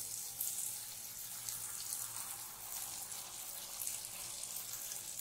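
Jalebi batter frying in a wide pan of hot ghee and oil: a steady sizzle with fine crackling as fresh batter is piped in.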